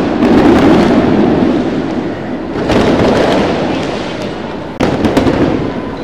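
Fireworks going off: three bursts, each a sudden boom that rumbles on and fades over about two seconds, with a spell of sharp crackling about five seconds in.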